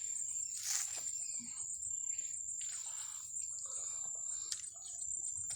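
Steady high-pitched insect drone, with soft, irregular rustling sounds and a faint click about four and a half seconds in.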